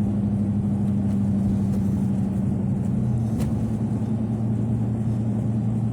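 Vehicle engine running while driving, with steady engine drone and road noise; the engine's pitch shifts about halfway through.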